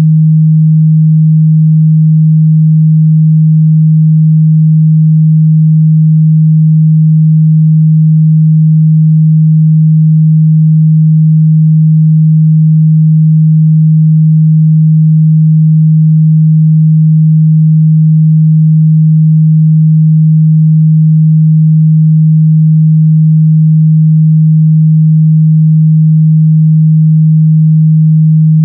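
Steady 157 Hz sine-wave test tone, one pure low hum held at constant loudness.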